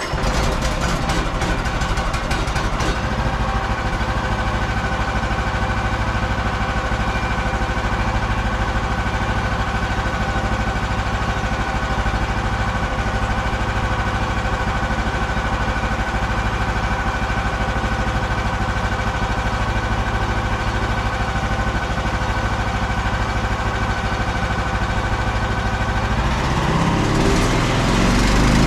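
Frontier bandsaw sawmill's engine running steadily at idle; near the end it is throttled up and runs faster and a little louder.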